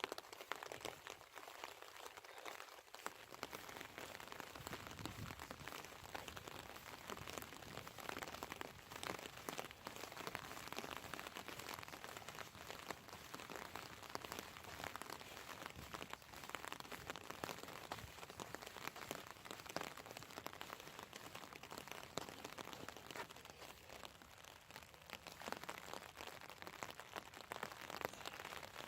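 Rain falling steadily, a dense patter of small drops striking close by.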